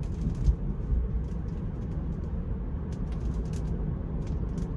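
Inside an electric Tesla's cabin, steady road and tyre rumble from driving on a wet road, overlaid by irregular sharp taps of raindrops striking the glass and roof. There is one louder low knock about half a second in.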